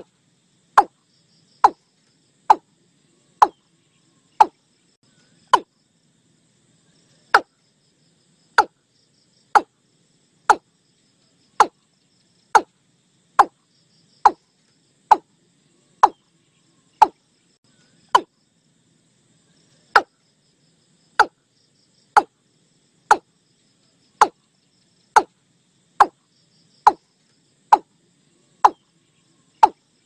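Watercock calls: short, sharp notes repeated about once a second, each dropping slightly in pitch, with two longer pauses. A faint, high insect trill runs underneath.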